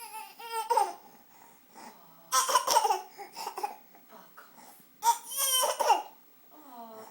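A six-month-old baby making put-on coughs that run into whiny, cry-like vocal sounds, in three bursts a couple of seconds apart. The cough is fake and done to get attention, not a sign of illness.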